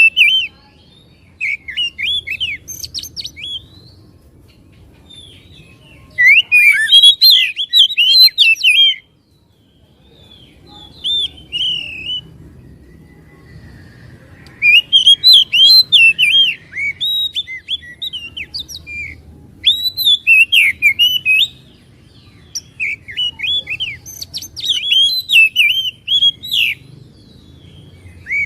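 Oriental magpie-robin (kacer) singing loud phrases of rapid, varied notes, each phrase lasting a few seconds with short pauses between.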